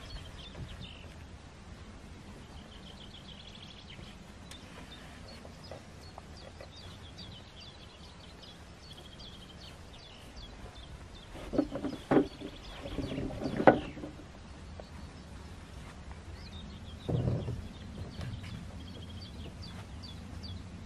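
Knocks and scraping of a canoe hull being shifted on a car's roof rack: a cluster of bangs about halfway through and another bump a few seconds later. Small birds chirp repeatedly throughout.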